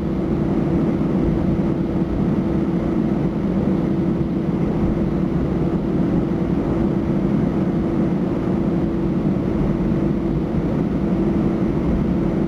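Cabin noise of an Airbus A318-111 taxiing: the CFM56 engines at idle with a steady hum and one held tone, heard from inside the cabin.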